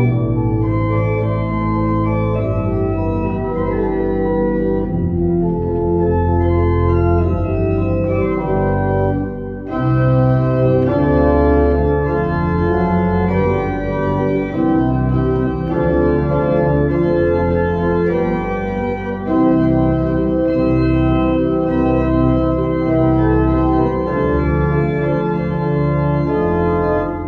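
Church organ playing a Motown pop medley: sustained chords over a deep pedal bass, with a short break about nine and a half seconds in.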